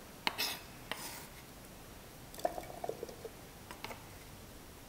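Sliced onions, garlic, chilies and turmeric being put into a blender jar: a handful of light clicks and knocks, a few with a short hollow ring, with soft rustles between. The blender is not running.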